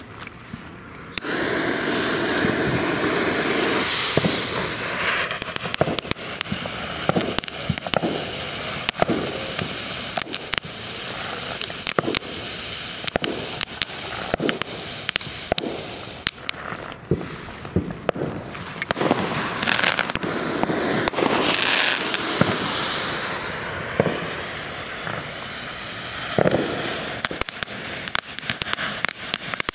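A consumer firework fountain from a TNT assortment burning. A steady hiss starts about a second in, with frequent sharp crackles and pops throughout.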